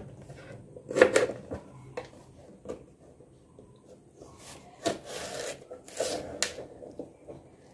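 Knife slitting okra pods lengthwise on a plastic cutting board: a few short scrapes and taps of the blade on the board, the sharpest about a second in, with longer scraping stretches about halfway through.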